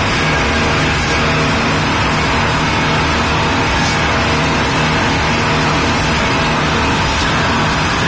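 Speedboat running fast over open sea: a loud, steady engine drone mixed with the rush of water and spray along the hull.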